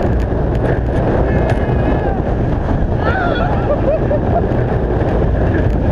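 Loud wind roar over the microphone as the Skyrush roller coaster train runs at speed through banked turns. About three seconds in come short wavering rider screams.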